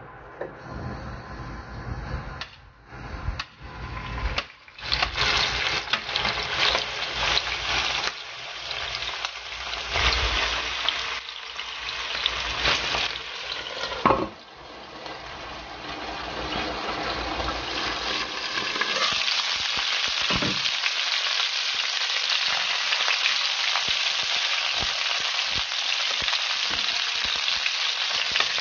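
Chicken pieces sizzling in hot oil in a nonstick frying pan, with uneven crackling and metal tongs knocking as the pieces go in. About halfway through a sharp clank as the pan lid is set on, then a steady frying sizzle that grows louder.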